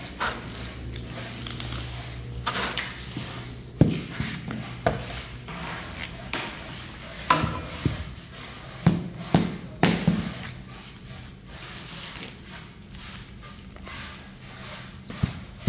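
Rubber mallet tapping a large floor tile to bed it in: irregular knocks, several in quick succession around the middle, over a steady low hum.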